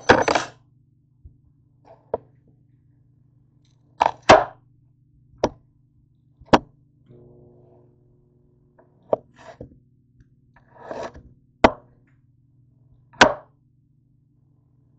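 Chef's knife slicing boiled potatoes on a cutting board. The blade knocks sharply on the board about nine times at uneven intervals, with brief rubbing and scraping as the potato pieces are handled.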